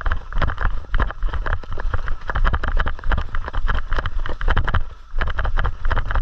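Footsteps of a person moving briskly through dry leaves and brush, a quick irregular crunching of several steps a second over a low rumble from the body-worn microphone.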